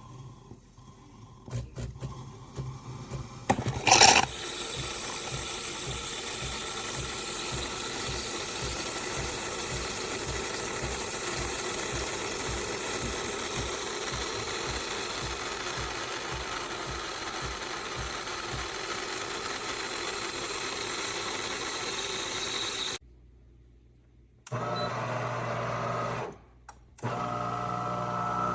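A fully automatic espresso machine running, a steady mechanical whir with a rapid, even low pulsing. A loud clack comes about four seconds in. Near the end the sound cuts off abruptly, and two shorter bursts of machine sound with a steady tone follow.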